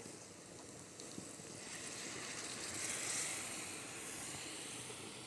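A little water poured into tomato-onion masala frying in hot ghee in a pan, sizzling as it hits the hot fat; the hiss swells to its loudest about three seconds in, then settles to a steady sizzle.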